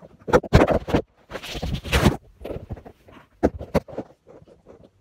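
Scratchy rubbing and rustling handling noise right at the phone's microphone as it is gripped and adjusted, in a string of separate rubs, loudest in the first two seconds.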